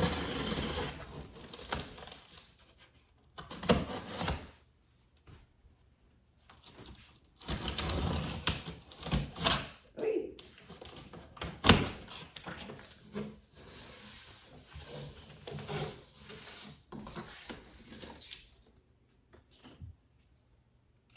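A cardboard shipping box being opened by hand: stretches of cardboard and packaging scraping and rustling, broken by several knocks and thumps, the sharpest about twelve seconds in.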